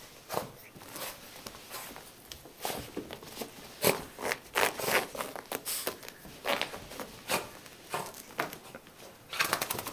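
A freshly bathed wet dog rolling and rubbing its back and fur on carpet: irregular scratchy rustles of fur and paws on the pile, coming quicker and more densely near the end.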